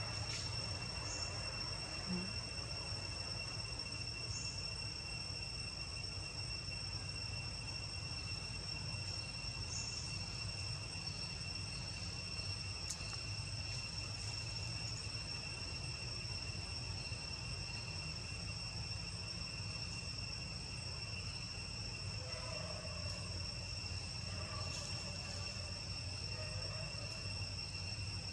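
Steady, high-pitched insect drone from a forest insect chorus, holding one pitch without a break, over a low background rumble.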